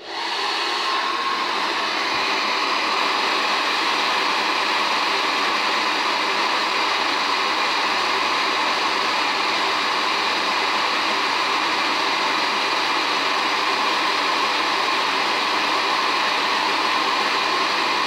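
Handheld hair dryer switched on and blowing steadily at full power, a rush of air with a faint steady whine in it; it comes up to full level within about a second.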